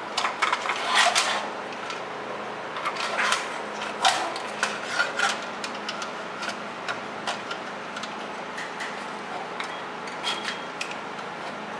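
Irregular clicks, taps and rubbing as a Lifepak 20 defibrillator's circuit board and sheet-metal shield are handled and fitted together, in clusters with pauses between, over a steady low hum.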